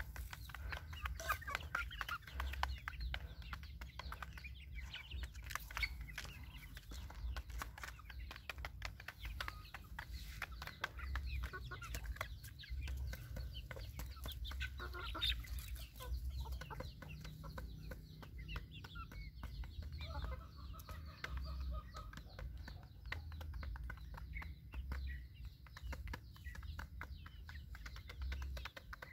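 Young chickens clucking softly while pecking grain from a shallow feed pan, with many quick, sharp clicks of beaks striking the pan and grain. A steady low rumble runs underneath.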